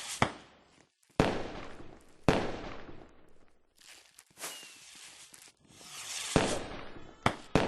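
Fireworks going off: about six sharp bangs spread irregularly over several seconds, each trailing off over up to a second, a few of them preceded by a short rising hiss.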